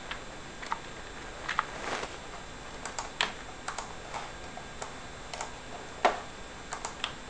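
Computer keyboard keys tapped in scattered, irregular keystrokes, with one louder key strike about six seconds in.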